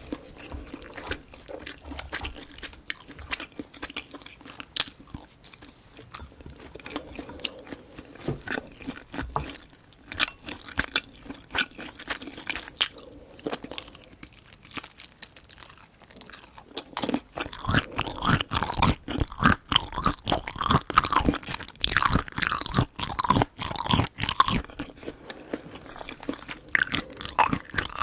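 Close-mic'd chewing and biting of food: sparse, quieter mouth clicks for the first half, then much louder, dense chewing from a little past halfway.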